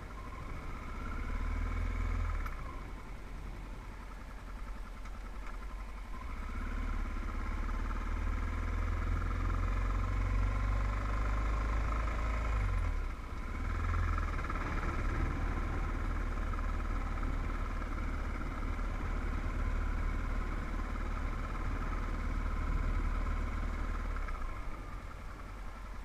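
Motorcycle engine running as the bike rides along a road. The engine eases off about three seconds in, pulls again, and dips briefly about halfway through.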